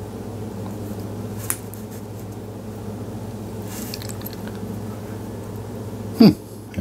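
Thin lure wire being twisted and bent by hand, with faint small clicks and scrapes over a steady low hum. Near the end comes a short, louder vocal sound that falls in pitch.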